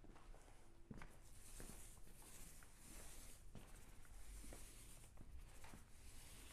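Paint roller on an extension pole rolling a wet urethane topcoat across an epoxy floor: a faint hiss that swells and fades with each back-and-forth stroke, with a few light ticks.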